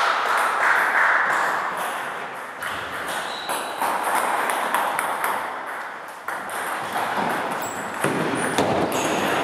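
Table tennis rally: the ball clicking in quick succession off the rackets and the table, the hits echoing in a large sports hall.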